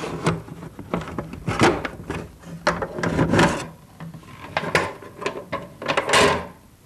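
Handling noise of an oscilloscope being moved and searched: a run of knocks, clicks and scraping rubs of hard parts. It stops shortly before the end.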